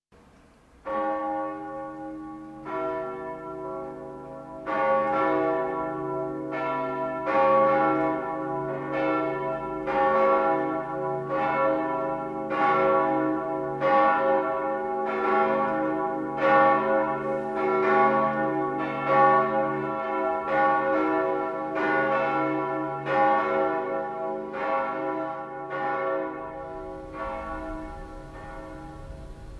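Church bells ringing in an overlapping peal: a few separate strikes at first, then strikes coming about once a second with their tones hanging on, dying away near the end. Rung ahead of a morning prayer service.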